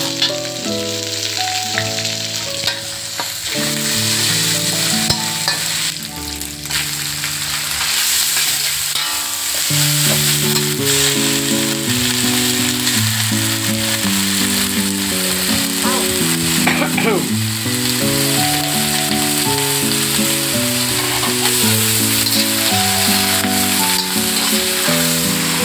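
Oil sizzling in a steel wok as a stir-fry of sambal and leafy greens is tossed with a metal spatula. Background music with a melody plays throughout.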